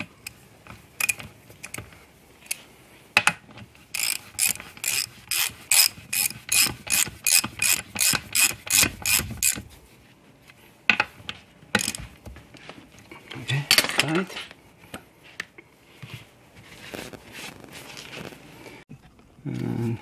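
Hand ratchet clicking in quick, even strokes, about three to four clicks a second for several seconds, while bolts are run down on the lid of an aluminium Honda Prelude transmission case. Scattered single clicks and a short clatter of metal parts come before and after the run.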